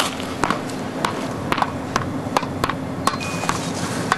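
A rapid series of sharp knocks, about two to three a second and unevenly spaced, over a steady background hum.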